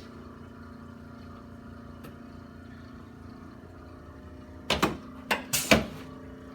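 A quick run of about five sharp knocks and clacks from chiropractic adjustment thrusts on a treatment table, close together about five seconds in, over a steady low hum.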